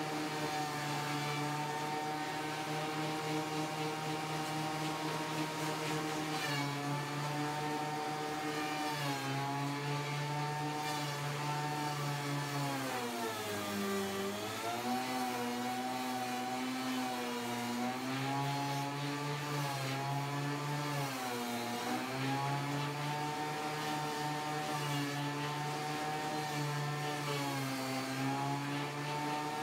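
Benchtop thickness planer running steadily with its motor loaded by boards fed through one after another. The motor's pitch sags and recovers several times as the cuts bite, dipping deepest about halfway through.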